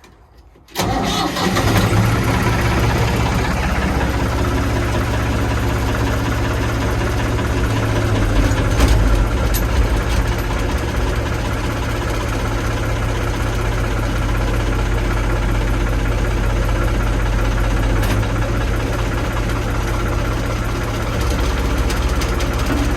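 Old Ford backhoe's engine starting about a second in, then running steadily at idle as it warms up.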